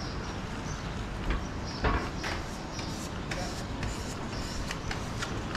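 Outdoor ambience of a busy pedestrian shopping street: a steady background hubbub with scattered sharp clicks and taps, such as footsteps on paving.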